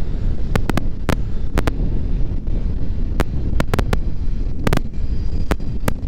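Wind buffeting the microphone, a loud steady low rumble, with irregular sharp clicks or taps scattered through it, some coming in quick pairs.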